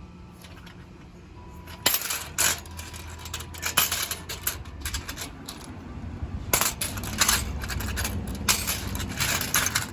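Metal tokens clinking against each other as a pile of them is handled, with many sharp, irregular clinks starting about two seconds in.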